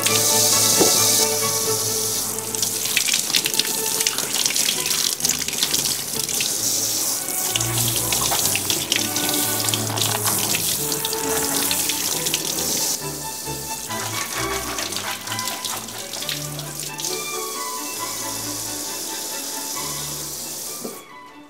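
Kitchen tap running into a stainless-steel sink, the water splashing over hands and then over small green peppers being rinsed under the stream. The splashing shifts as they move in and out of the flow, and it stops near the end. Background music plays under it.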